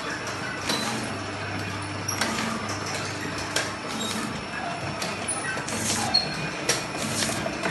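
Automatic sticker labeling machine running: steady motor and conveyor noise with a low hum, broken by a few sharp clicks.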